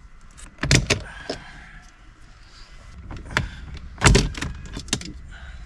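Plastic dash side trims on a Holden VF Commodore being pried off, their retaining clips popping loose with several sharp clicks and plastic knocks.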